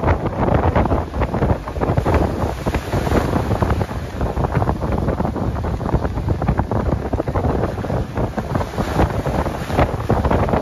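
Strong wind buffeting the microphone in uneven gusts, over the wash of waves breaking on the shore.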